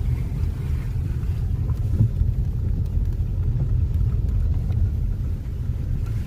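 A car driving, its engine and road noise a steady low rumble.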